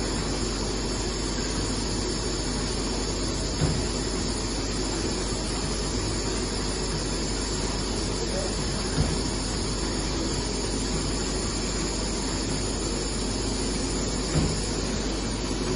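L-sealer shrink wrap machine running with a steady hiss and low hum. A brief knock sounds three times, about five seconds apart.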